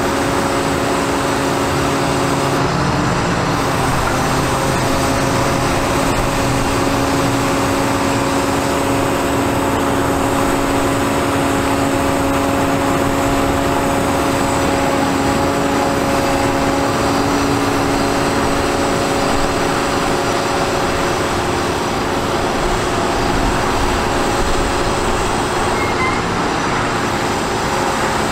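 Caterpillar C7 diesel engine running with its PTO-driven hydraulic pump powering a Hiab 122B2 knuckleboom crane as the boom unfolds and lifts: a steady droning hum whose pitch shifts about three seconds in, then holds.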